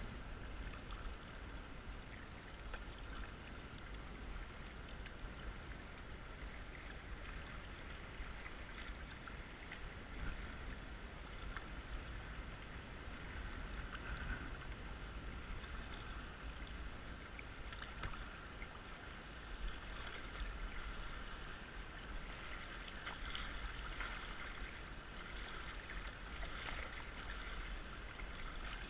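Fast, swollen creek water rushing around a kayak hull, with the splash of paddle strokes now and then, over a steady low rumble.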